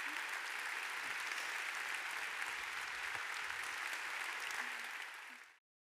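Large audience applauding steadily, fading out and cutting off just before the end.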